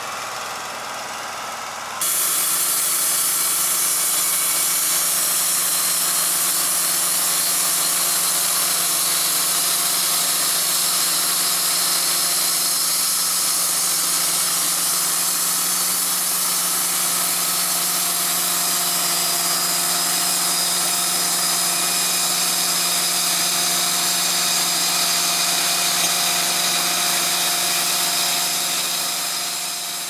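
Wood-Mizer LT35 portable band sawmill running steadily, a bright hiss over a held hum. It gets louder about two seconds in and fades out at the end.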